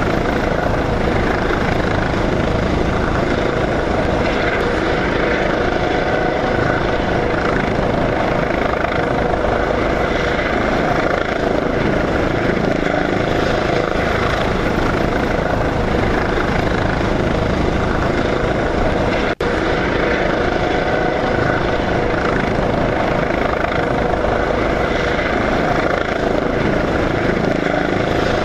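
Small multirotor camera drone's propellers and motors buzzing steadily in flight, heard from the drone itself, with a fast fine flutter and a steady motor whine. The sound cuts out for an instant about two-thirds of the way through.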